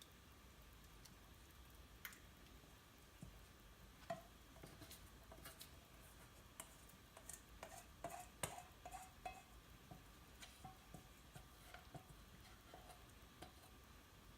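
Faint scattered clicks and light taps of a utensil against a bowl and baking dish, busiest in the middle, as the creamy sauce mixture is poured and scraped out over the chicken and broccoli.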